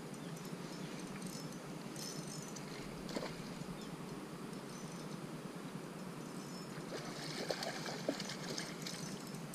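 A hooked shad splashing and thrashing at the water's surface close to the bank, loudest near the end, over a steady outdoor background hiss.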